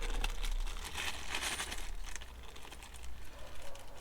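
Plastic packaging crinkling and rustling in irregular bursts with small clicks as it is worked open by hand, busiest a second or so in.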